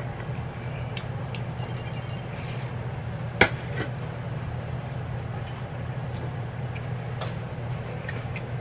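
A utensil clinking against a dish: one sharp clink about three and a half seconds in, and a few lighter clicks, over a steady low hum.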